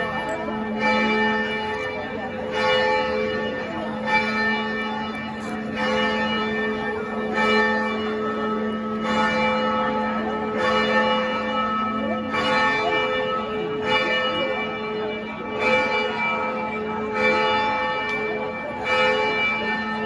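Church bells ringing, struck again about every one and a half to two seconds, each strike ringing on into the next over a steady low hum.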